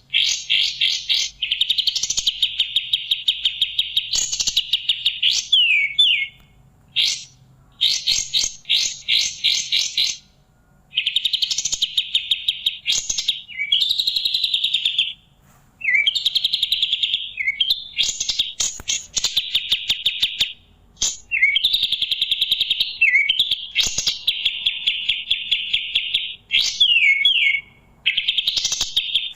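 Pied triller (kapas tembak) singing. Its song is long, fast trills of rapidly repeated high notes in phrases of one to four seconds, broken by short gaps and quick downward-slurred notes.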